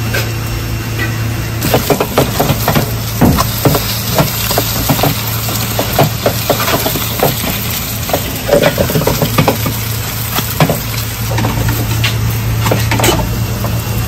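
Vegetable pancakes (pajeon) frying in oil in two pans, sizzling, with a plastic spatula tapping and scraping against the pan many times through the middle of the clip, over a steady low hum.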